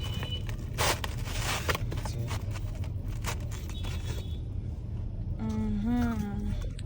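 A person tasting pizza with a short hummed "mmm" about five and a half seconds in, its pitch rising then falling. Under it, a steady low hum and a few brief rustles.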